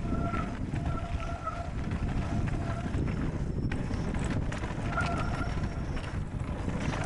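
Mountain bike rolling fast down a gravel trail: tyres and frame rattling over the gravel with wind on the camera microphone, and several short pitched whines coming and going along the way.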